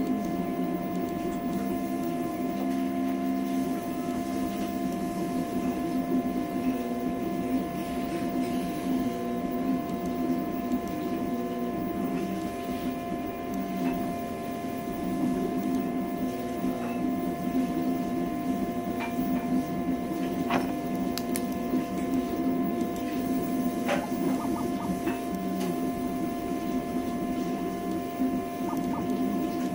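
CoreXY conveyor-belt 3D printer running a print: its stepper motors hum in pitches that shift every fraction of a second as the print head moves, over a steady high whine. A few light ticks come past the middle.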